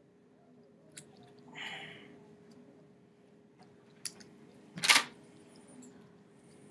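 Gloved hands handling a cut-open pig heart on a plastic dissecting tray: a few faint clicks and a brief rustle, then one louder short scraping noise about five seconds in, over a faint steady hum.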